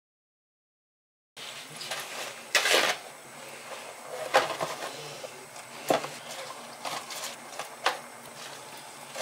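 Hands working with a plastic food storage box and fresh greens: a few light knocks of the plastic and leafy rustling over a faint room hum, starting about a second and a half in after dead silence.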